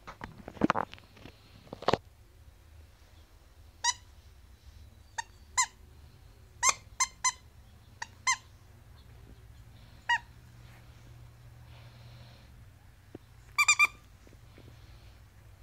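Squeaker in a plush dog toy squeaking about ten times, in short squeaks and quick runs of two or three, with a fast cluster near the end. Rustling and bumping of the toys and blanket come first, in the opening two seconds.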